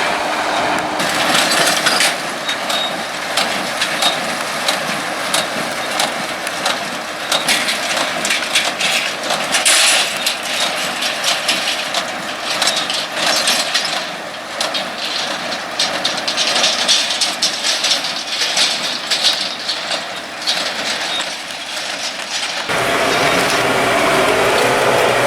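Crackling, rustling noise of dry hay with many small clicks, as small square bales are handled and loaded onto a trailer. Near the end it changes suddenly to the steady hum of a machine running.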